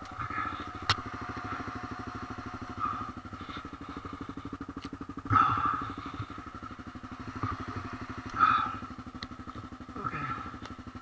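Honda CRF250L's single-cylinder four-stroke engine idling with a steady, even pulse. It swells briefly louder twice.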